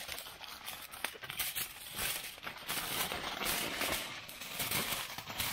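Aluminium foil crinkling and crackling as it is folded by hand around a meat parcel in several layers.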